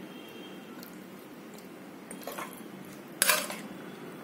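Steel serving spoon clinking and scraping against a metal kadai while chicken in thick gravy is scooped out and laid over rice, with a small clink a little past two seconds and a louder clatter about three seconds in.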